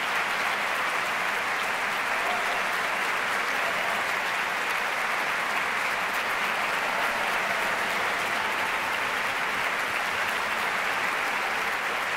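Audience in a large concert hall applauding: dense, even clapping at a steady level throughout.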